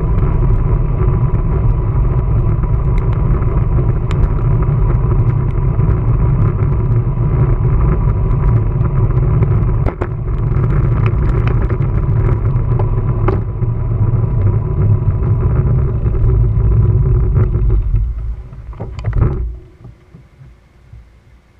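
Wind rushing over the microphone and tyre noise of a moving bicycle: a loud, steady low rumble with a faint steady whine. About 18 seconds in it dies away, a short knock or rustle follows, and the rest is fairly quiet.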